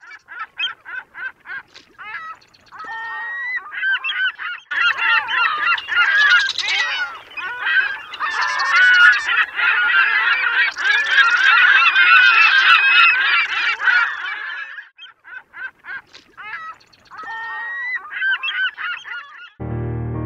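A flock of gulls calling: scattered cries at first, swelling about five seconds in into a dense chorus of overlapping calls, then thinning out again near the end.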